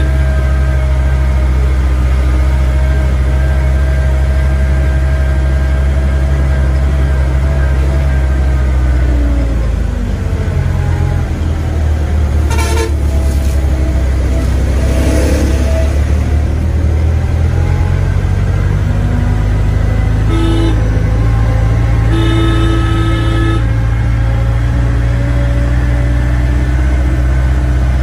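Vehicle engine running steadily, heard from inside the cabin, its pitch dropping and wavering about a third of the way in. A horn toots briefly twice, then longer near the end, and a truck goes by close alongside in the middle.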